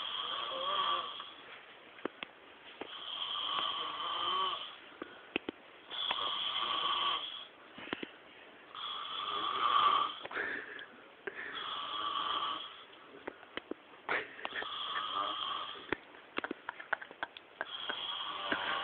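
A man snoring in deep sleep, one long snore about every three seconds, seven in all, the loudest about halfway through. Short faint clicks fall between the snores.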